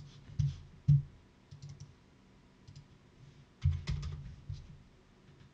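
Scattered clicks of a computer mouse and keyboard, with a few dull knocks that are the loudest sounds, twice in the first second and again just before four seconds in.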